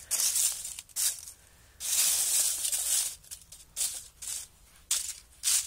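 Dry fallen oak leaves crackling and rustling in irregular bursts as a gloved hand pushes them into a pile.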